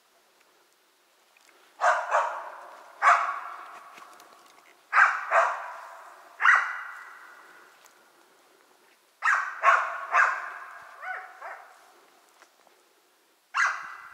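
Laika hunting dog barking: about a dozen sharp barks in groups of one to three, each fading out in a long echo.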